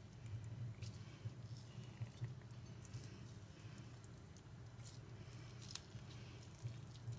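Faint squishing and small clicks of a hand squeezing a cut lime over chopped onion in a ceramic bowl and pressing the juice in, over a low steady hum.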